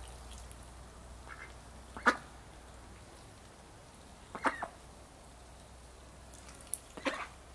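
Runner ducks quacking while feeding: a few short, separate quacks, the loudest about two seconds in, a pair a little past the middle and another near the end.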